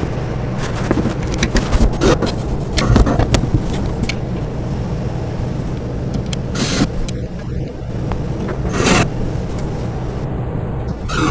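Cordless drill driving small hinge screws into a wooden doll-armoire door in two short bursts, about six and a half and nine seconds in, after a run of knocks and clicks as the door is handled and held against the hinges.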